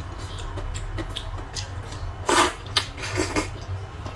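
Eating sounds from a bowl of rice-noodle soup: a few short, noisy slurps starting about two seconds in, over a steady low hum.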